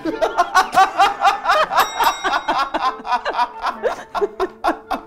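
A man laughing heartily in a long run of rapid "ha-ha" pulses, about five a second, easing off somewhat toward the end.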